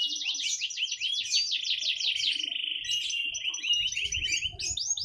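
Domestic canary singing a fast, continuous song of rapidly repeated notes, with a steady rolling trill about halfway through.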